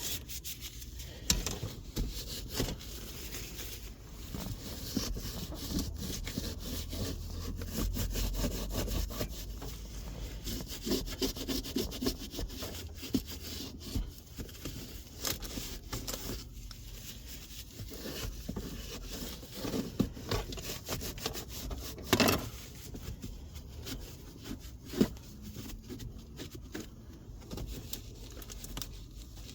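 Irregular rubbing and scrubbing of a wipe on a car's plastic gear-lever trim, cleaning off dirt, broken by scattered clicks and knocks of handling the plastic parts.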